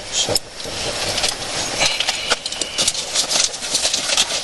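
Steady road-traffic noise, with frequent short rustles and clicks close to the microphone.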